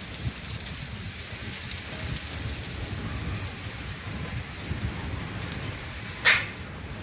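Windstorm: a steady hiss of wind, with gusts buffeting the microphone in a low rumble. A short, sharp hiss about six seconds in is the loudest sound.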